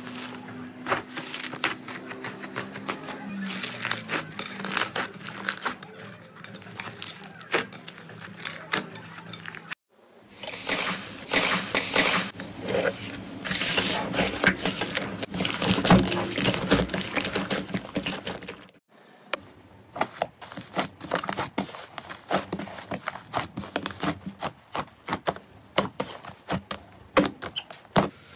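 Hands squeezing and kneading fluffy slime, with a dense, fast crackling and popping. The sound breaks off briefly twice as it moves on to a different batch of slime.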